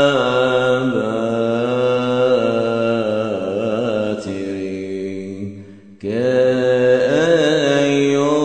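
A voice chanting a Coptic hymn in long held notes with wavering melismatic ornaments. The line fades about five seconds in, breaks off briefly near six seconds, then picks up again on a new phrase.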